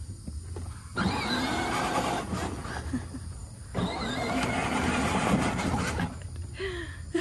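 Electric drive motors and gearbox of a children's battery-powered ride-on toy Jeep whirring as it drives over grass. It runs in two spells: the first starts about a second in, it stops briefly near the middle, and the second stops about six seconds in.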